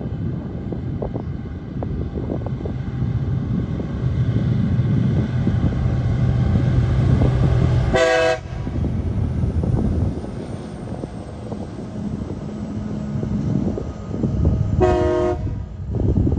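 TasRail freight train passing close by, its diesel locomotives and rolling wagons making a continuous rumble that builds as they come level. The horn sounds two short blasts, one about eight seconds in and another near the end as the train heads for the level crossing.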